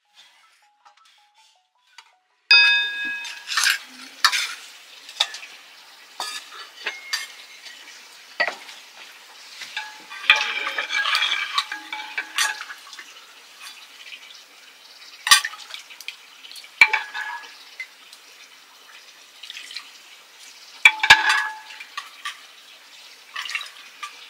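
Metal ladle clinking and scraping against an aluminium pot and bowls as soup is ladled out. A run of separate sharp clinks, some ringing briefly, with the loudest about two and a half seconds in. The first couple of seconds are nearly silent.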